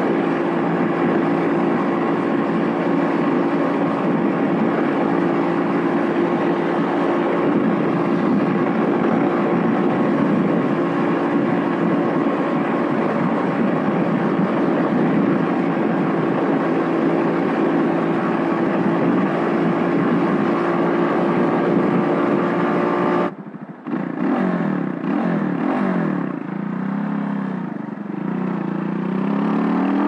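Vitacci XMT 250 motorcycle engine running steadily at highway cruising speed, about 62 mph. About 23 seconds in the sound cuts abruptly to the engine at low speed, its revs falling and rising, with a rising rev near the end.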